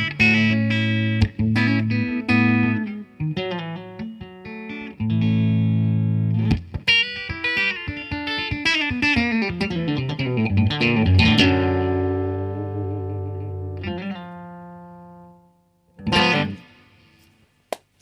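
Unaccompanied electric guitar playing quick picked runs over held low notes. Near the middle a last note is left ringing and fades out over a few seconds, and a brief chord sounds near the end.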